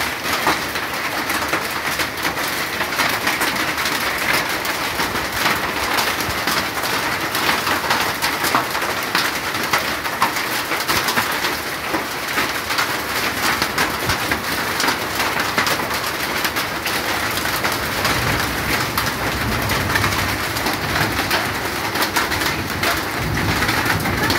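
Hailstorm with heavy rain: a steady, dense hiss of falling rain, thick with sharp taps of hailstones and drops striking.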